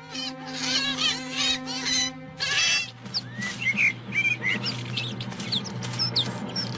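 European polecat squealing: a quick run of high, wavering squeaks for the first two seconds or so, then sparser short chirps. A sustained music drone plays underneath.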